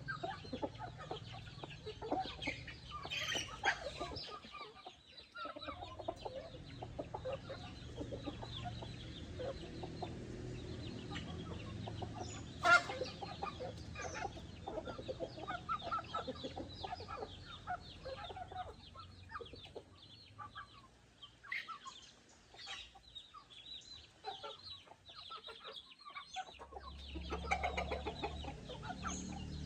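Backyard chickens clucking, a steady scatter of short overlapping calls from several hens, with one sharper, louder call about halfway through. A low rumble comes and goes underneath.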